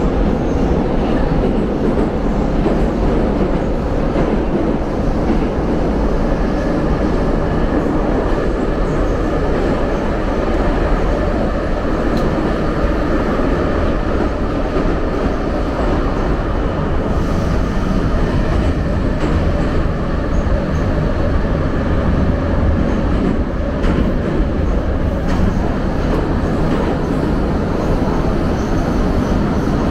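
St. Petersburg metro train running between stations, heard from inside the carriage: a steady, loud rumble of wheels on rails that never lets up, with a faint high whine in the middle stretch.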